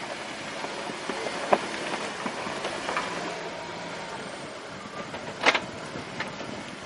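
Jeep engine running under a steady rumble during a rocky ledge climb, with two sharp knocks, the louder one near the end.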